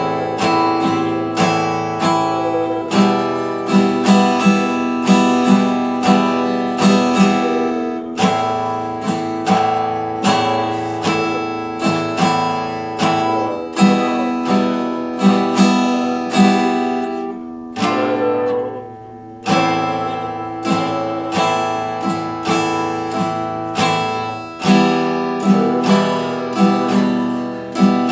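Epiphone acoustic guitar strummed in steady chords, about two strokes a second, with a short lull about two-thirds of the way through before the strumming picks up again.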